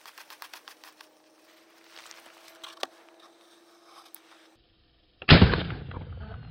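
Faint clicks and handling noise, then about five seconds in a single loud shot from a Utah pistol with a rifled .50-calibre barrel firing a standard .410 shot shell, its report trailing off in a low rumble.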